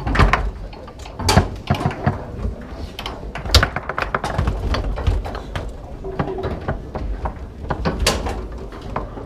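Foosball play: the hard ball is struck by the men and knocks against the table walls, while the rods slide and bang in their bearings. The result is a run of irregular sharp clacks and thuds, with a few louder shots about a second and a half in, three and a half seconds in, and near the end.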